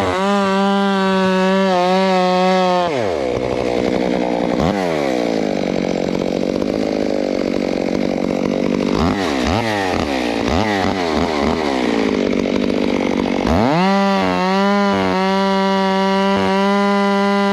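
Ported Makita chainsaw running at high revs while bucking a felled fir. About three seconds in its revs fall sharply and keep rising and falling for around ten seconds, then climb back to full speed near the end.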